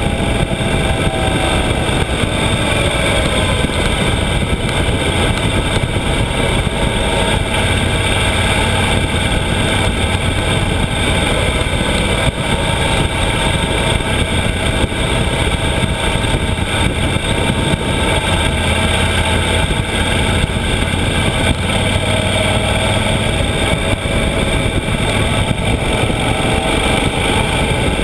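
Yamaha XT1200Z Super Ténéré's parallel-twin engine running at road speed, heard from an onboard camera, under a steady rush of wind and road noise. The engine note eases off near the start and climbs again near the end.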